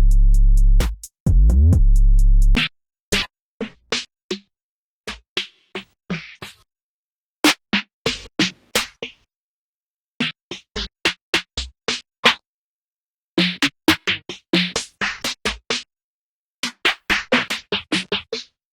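Drum-machine one-shot samples played one at a time. First come two long, deep 808-style bass hits, the second sliding in pitch. Then comes a string of short percussion hits in quick groups, with brief silences between them.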